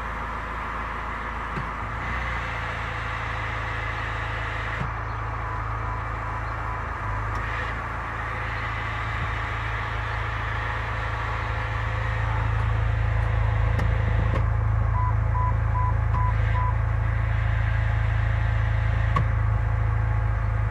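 Chrysler Grand Voyager's 62TE automatic transmission whining over the steady hum of the running engine, growing louder about halfway through. The owner put the whine down to low fluid pressure from a filter he thinks was clogged by excess sealant, cured by a new filter and fluid.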